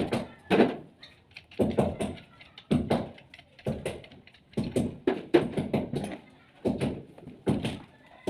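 A series of sharp knocks, irregular at about one or two a second and some in quick pairs, each with a short ring after it.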